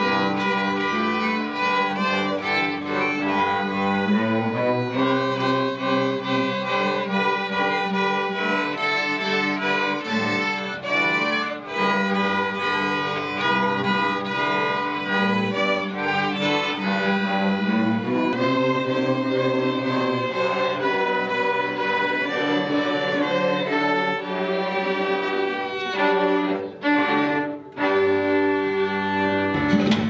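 A children's string ensemble of violins and cellos playing a piece together, long bowed notes over a cello bass line, with a couple of brief breaks near the end.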